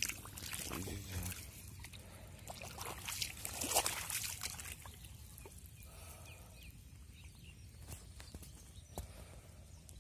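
Shallow muddy floodwater in a paddy field sloshing and trickling in irregular splashes, strongest a little under halfway through.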